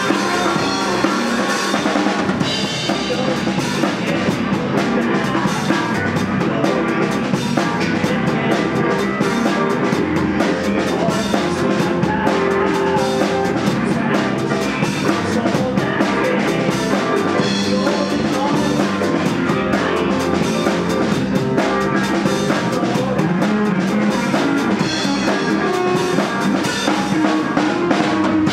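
Live rock band playing: electric guitars over a steady drum kit beat.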